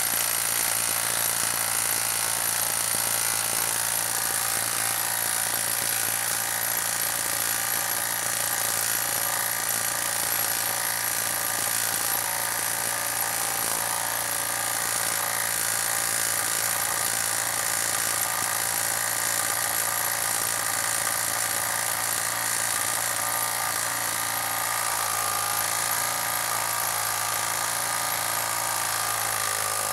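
Hilti brushless impact driver hammering steadily under load as it drives a hex-head lag screw into a wooden log, then cutting off abruptly at the end once the screw is driven home.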